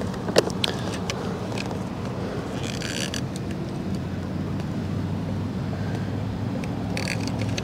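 A steady low mechanical hum, with a few light clicks near the start and a brief soft hiss about three seconds in.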